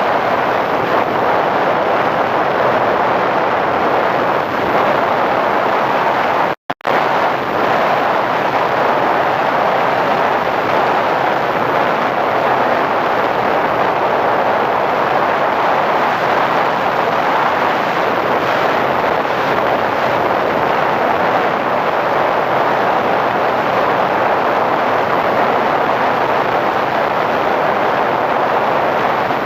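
Steady, loud rushing noise of air and motor picked up by the onboard FPV camera of a model P-51 Mustang in flight, with a brief dropout about seven seconds in.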